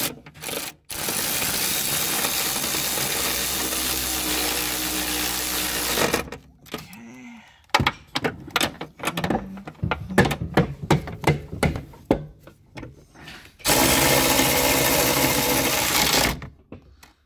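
Power ratchet running in two steady bursts, about five seconds and then about three seconds long, spinning a nut down during a coilover install. Between the bursts there is a run of sharp, irregular clicks.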